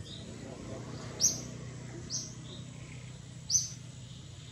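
A bird calling over and over: short, high, falling chirps about every second or so, the loudest a little after a second in and again past three seconds, with fainter lower notes between them. A steady low rumble of background noise runs underneath.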